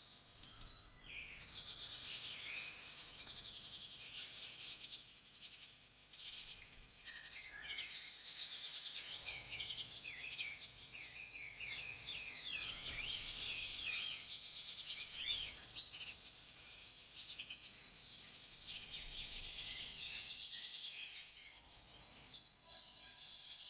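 Many birds chirping and calling at once, a dense chorus of short, high chirps and trills.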